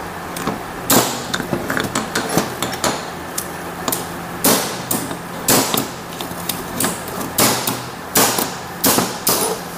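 Hammer-like metal knocks and clinks at irregular intervals, about seven sharper strikes among lighter clicks, as a rocker shaft is worked out of a motorcycle cylinder head.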